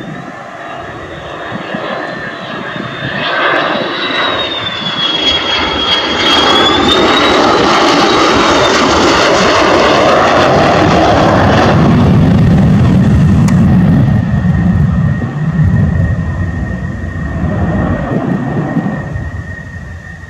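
Single-engine F-16 fighter jet on final approach with gear down: a high engine whine that wavers in pitch grows into a loud jet roar as it passes close, then drops suddenly to a deep rumble that fades away.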